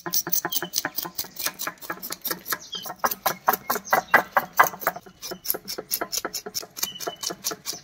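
Knife blade scraping the scales off a whole fish on a terracotta tile in quick repeated strokes, several a second, the scales rasping and flicking off.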